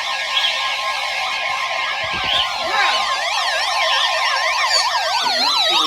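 Several electronic siren tones overlapping, each warbling up and down about four times a second, over a steady tone near 1 kHz that stops about halfway through. Near the end some of the tones slide downward.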